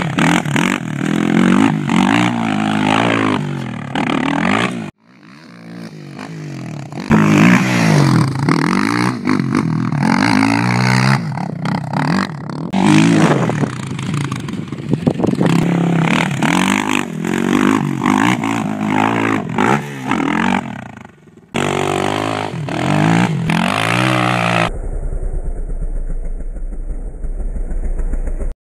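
Suzuki LTR450 quad's single-cylinder four-stroke engine revving hard under riding, its pitch repeatedly climbing and dropping as the throttle is worked, with dirt and gravel clatter. It breaks off abruptly twice, and in the last few seconds gives way to a steady low hum.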